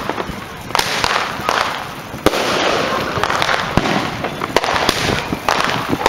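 Fireworks going off: a dozen or so sharp bangs and cracks at irregular intervals, of varying loudness, over a continuous noise of more fireworks.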